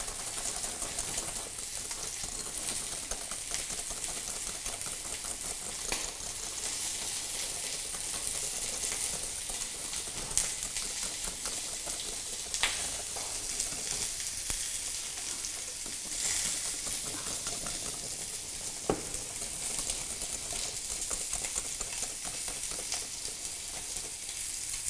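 Turkey thighs sizzling steadily as they brown in hot oil in a pan, over the fine rapid ticking of a wire balloon whisk beating egg yolks and sugar in a glass bowl, with a few sharper clinks of the whisk on the glass.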